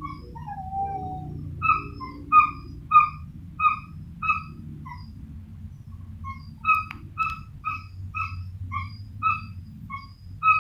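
An animal calling over and over in short, same-pitched high calls, about two a second, with a pause of a second or so midway and a brief falling whine near the start; a steady low hum runs underneath.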